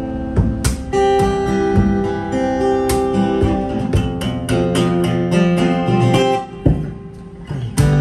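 JiazHuo cutaway steel-string acoustic guitar played fingerstyle, picked chord notes and melody ringing over each other. It drops quieter about six and a half seconds in, then a strong strum comes near the end.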